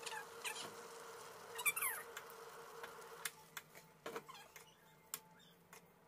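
A ladle stirring a pan of bubbling mushroom curry, with scattered light clinks and taps against the pan. About a second and a half in comes a short high call that falls in pitch.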